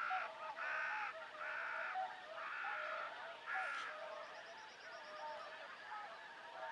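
A large gathered flock of geese and swans calling: a dense chorus of honking and trumpeting, with loud individual calls coming about every half second to second over a continuous background of more distant calls.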